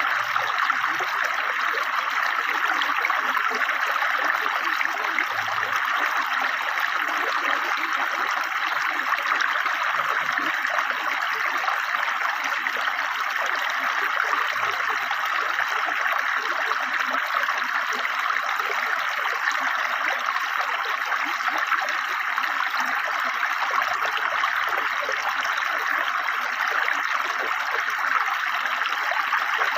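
A river flowing swiftly, a steady, unbroken rush of running water.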